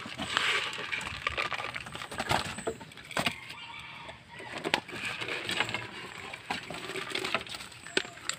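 Dry grain chicken feed rattling and scraping as it is scooped by hand from a plastic basin and poured into a clay feeding bowl, with several sharp clicks.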